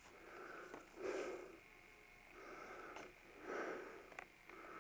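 Faint, heavy breathing of a person moving on foot, a breath about once a second, with a few light clicks in between.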